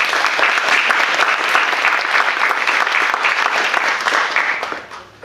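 A small audience applauding with steady clapping that dies away near the end.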